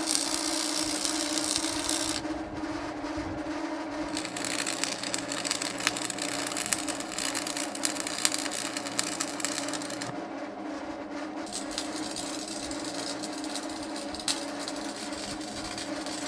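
Stick welding on steel with a Lincoln 225 AC arc welder: a steady crackle of the arc over a low steady hum. The arc breaks off for a couple of seconds about two seconds in, and again for about a second past the middle.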